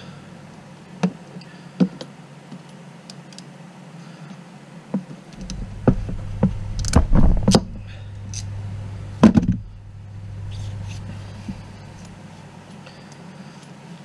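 Scattered knocks and clicks of hand tools and cable being handled on a workbench: the heavy ratchet crimping tool and the coax are moved about and set down on the desk mat. The loudest knocks come in a cluster about halfway through and once more a couple of seconds later, over a steady low hum.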